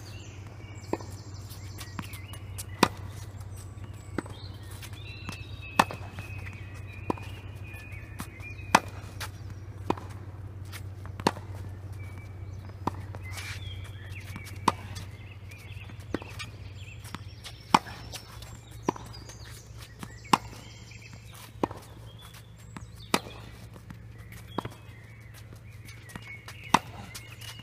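Tennis ball hit by rackets and bouncing on a hard court in a steady rally: a sharp pop about every second and a half, some hits louder than others, over a steady low hum.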